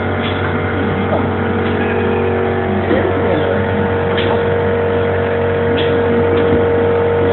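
Pneumatic excavator's motor running with a steady hum made of several constant tones; one tone grows stronger about three seconds in.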